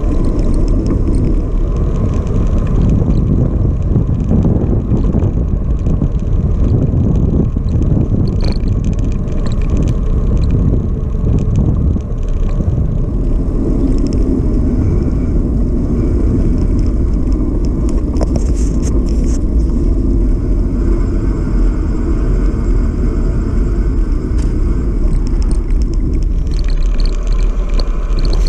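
Wind rumbling over the microphone of a bicycle-mounted camera while riding, mixed with tyre and road noise from the bike.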